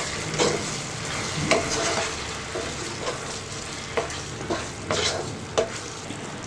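Fig pieces bubbling and sizzling in sugar syrup in a pan, stirred with a wooden spatula that scrapes and taps against the pan a handful of times over a steady hiss.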